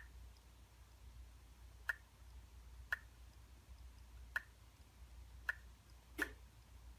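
Mid-2012 MacBook Pro making faint, sharp clicks, six of them at uneven intervals of roughly a second, the last a little fuller than the others. The cause of the clicking is unknown to its owner.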